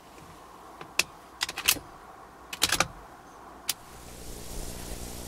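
A few sharp clicks and light clatters, single and in quick clusters over the first four seconds. Then a low steady hum fades in.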